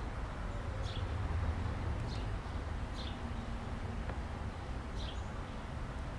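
Quiet outdoor background: a steady low rumble with four brief, high, falling bird chirps spread through it.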